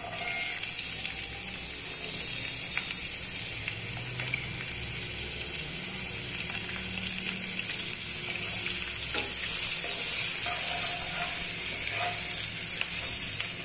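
Chopped onions sizzling in hot oil with garlic, a steady frying hiss that starts as the onions go into the pan, with light scraping of a wooden spatula stirring them.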